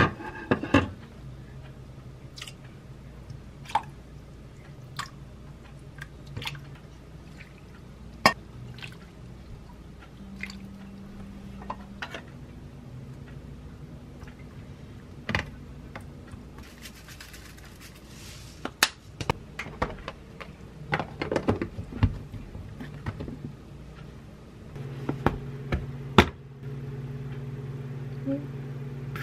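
Soy-sauce marinade being ladled from a pot over salmon and eggs in a plastic container: liquid pouring and dripping, with scattered clinks and knocks of the metal ladle against the pot and container. A glass pot lid is handled with a loud clank at the start.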